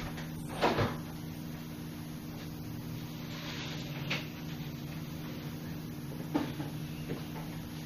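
Refrigerator door opened with a thump, followed by a few light clicks and knocks as things are handled inside, over a steady low hum.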